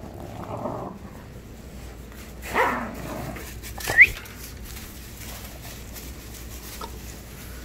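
Rottweiler puppies: a short bark a little over two and a half seconds in, then a sharp, high, rising yelp about four seconds in, the loudest sound.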